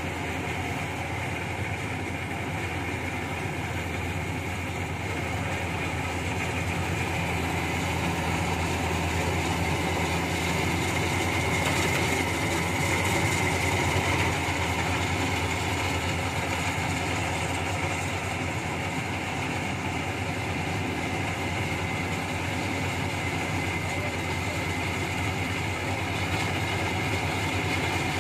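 Rice combine harvester running steadily as it cuts and threshes standing rice: a continuous diesel engine drone with a steady high whine from the machinery. It grows a little louder about halfway through as the machine comes closer.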